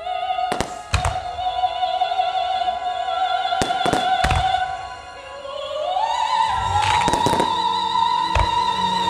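Music with an operatic voice holding a long wavering note that steps up in pitch about six seconds in. About eight firework bursts thud over it, in small clusters.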